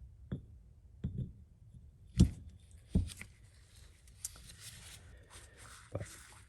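Scattered light knocks and clicks of NP205 transfer case parts being handled and fitted back together, with a soft scraping about four to five seconds in.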